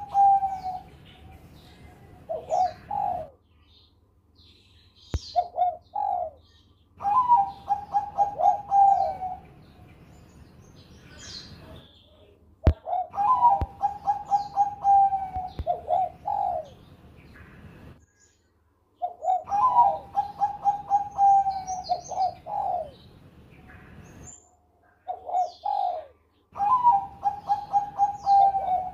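Caged zebra dove (Bangkok perkutut) cooing over and over in full song. Each phrase is a rapid rattling run of notes lasting a couple of seconds, usually followed by two short notes, with pauses between phrases.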